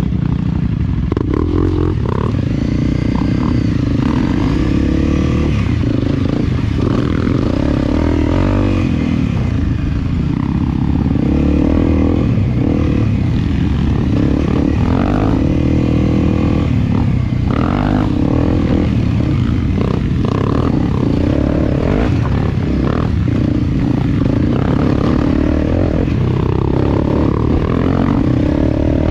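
Enduro dirt bike engine running on a trail ride, its pitch rising and falling again and again as the throttle is opened and closed.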